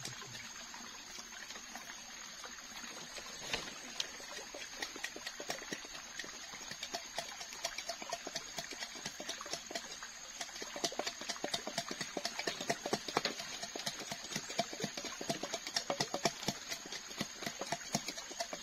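A wooden pestle pounding in an upright tube, making quick hollow knocks that grow louder and more frequent about ten seconds in, mixed with machete blades scraping and chopping tuber skins.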